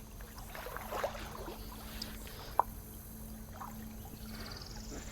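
Quiet ambience in a small boat: a faint steady hum with light water and handling noises, and one sharp click about two and a half seconds in.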